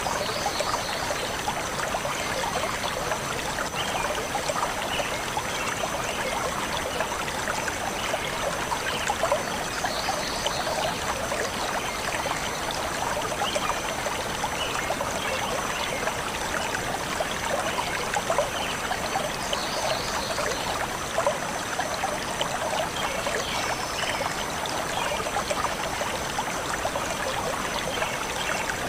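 Shallow stream flowing steadily, water trickling and splashing over stones.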